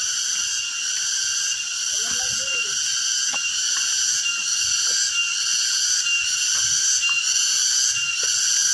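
A steady, high-pitched chorus of insects, shrilling in even pulses a little faster than once a second.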